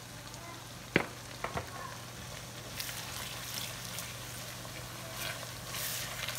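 Chopped onions, garlic and ginger sizzling in palm oil in an aluminium pan as a silicone spatula stirs them. Two sharp knocks of a utensil on the pan about a second in, and the sizzle swells louder in waves from about three seconds in.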